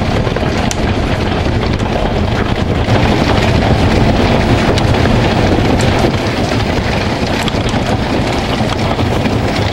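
Hail falling hard on a wooden deck, concrete steps and a lawn: a steady clatter of countless small impacts with sharper clicks scattered through it, and wind buffeting the microphone. It comes down a little harder from about three seconds in to six.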